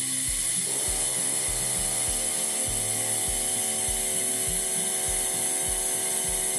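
Compressed air from an air compressor hissing steadily through a homemade bucket vacuum chamber's fitting, drawing the air out of the chamber to pull bubbles from the silicone. Under it, background music with a steady beat, its chords coming in about a second in.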